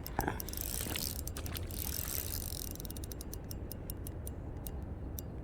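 Fishing reel's drag clicking rapidly and unevenly as a big hooked fish pulls line off it, over a low rumble of wind on the microphone.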